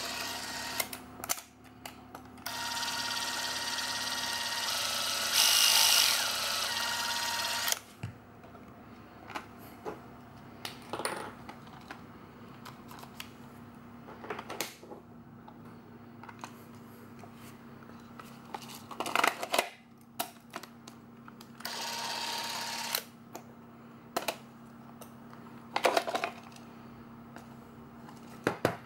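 Super 8 film camera's electric motor running with a steady whir that grows louder for about a second in the middle, then stops about eight seconds in. After that come clicks and clatter of the camera being handled and its compartment and film cartridge worked, with another short whir a little after two-thirds of the way.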